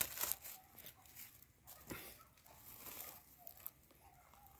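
Faint rustling and crackling of dry leaves and twigs on the forest floor. The crackles are densest near the start, then scattered and soft.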